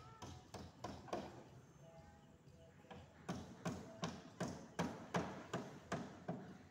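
A series of short, sharp taps or knocks, scattered at first and then a steady run of about two or three a second from about three seconds in.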